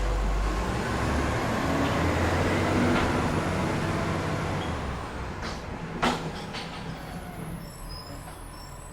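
Heavy truck engine running with a low rumble that fades steadily over the last several seconds. A single sharp clank sounds about six seconds in.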